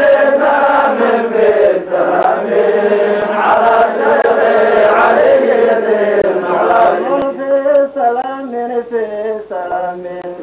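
Men chanting a Sufi dhikr, a continuous melodic chant that breaks into shorter, clipped phrases in the second half.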